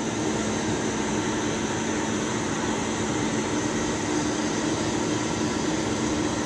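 Steady hum of running machinery: an even, fan-like noise with a low steady drone under it.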